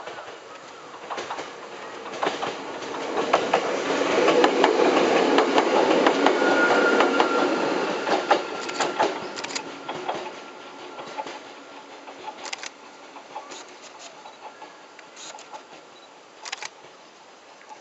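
Hakone Tozan Railway electric train passing close by, its rumble and the clatter of wheels over rail joints building to a peak about halfway through, then fading as it moves off, with scattered fainter clicks near the end.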